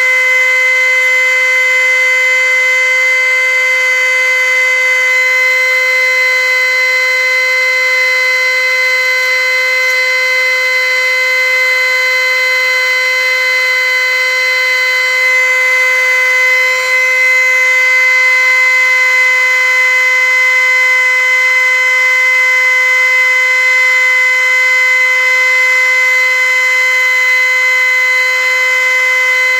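A loud, steady buzzing tone that holds one pitch without change.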